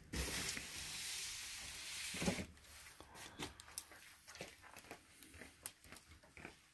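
Cardboard boxes and packaging being handled: a scraping hiss for about two seconds that ends in a thump, then scattered light clicks and rustles.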